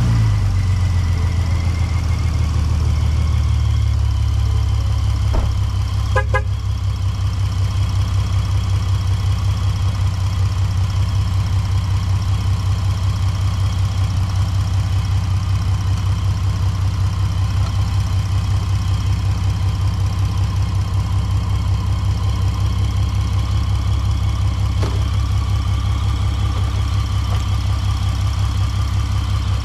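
Car engine idling steadily just after starting, running on freshly replaced spark plugs. The tapping knock is gone, but a light tick remains, which the owner thinks may come from the spark plugs on the other side.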